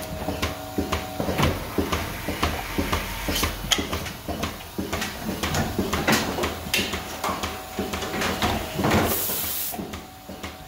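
Robotic milking machine arm working under a cow to attach the teat cups: an irregular run of mechanical clicks and clacks with air hissing.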